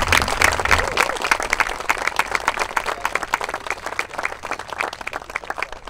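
A crowd of wedding guests applauding the couple's first kiss: dense clapping, loudest at first and gradually dying away.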